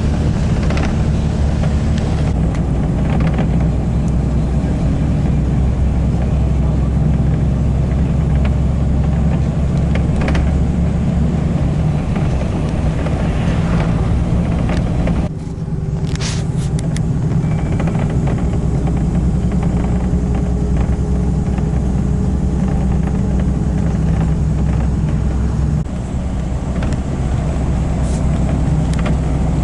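Car on the move: a steady low engine and road rumble, broken off suddenly about halfway through and carrying straight on again.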